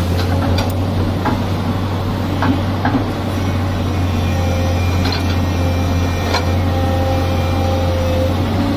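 Excavator's diesel engine running steadily, with a few short clanks scattered through it and a faint whine that comes and goes.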